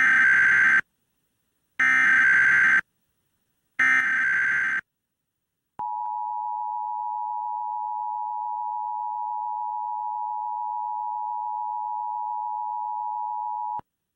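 Start of an Emergency Alert System test broadcast. First come three bursts of SAME digital header data, each about a second long and a second apart. Then the EAS attention signal follows: a steady two-tone beep held for about eight seconds that cuts off suddenly.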